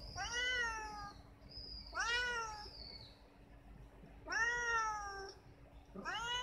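A domestic cat meowing repeatedly: four drawn-out meows about two seconds apart, each rising and then falling in pitch, the last starting near the end.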